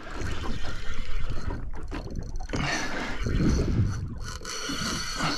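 Wind buffeting the microphone and water moving around a small boat's hull, an uneven low rumble.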